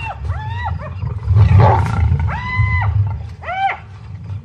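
Spotted hyenas giving short, high, arching yelps around a lioness, who growls low and lets out one loud snarl about a second and a half in.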